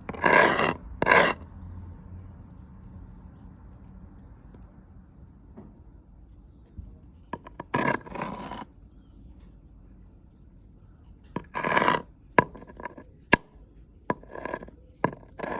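Objects being handled on a hard surface: short scraping rubs in three bursts, near the start, about eight seconds in and about twelve seconds in, with a few sharp knocks near the end.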